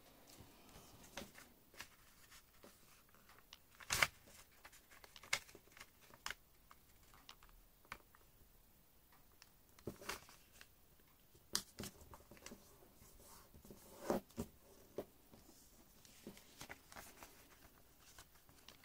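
A sheet of origami paper being folded and creased by hand: faint rustling broken by scattered sharp paper crackles, the loudest about four seconds in.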